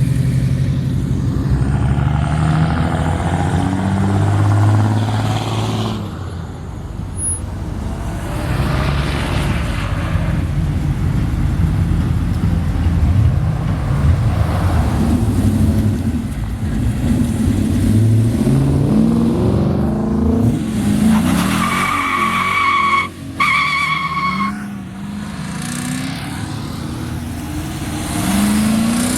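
Car engines revving and accelerating as cars pull away one after another, the engine pitch rising and falling again and again. About two thirds of the way through, a steady high tone holds for about two seconds.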